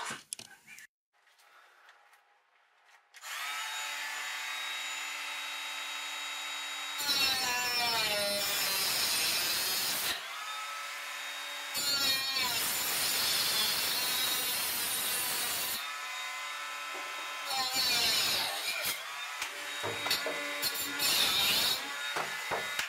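A cordless power tool cutting off an inch-and-a-half filler pipe. About three seconds in its motor starts with a steady whine, then twice runs louder and harsher for a few seconds as it bites into the pipe, its pitch sagging under the load. The last few seconds are short, irregular cuts.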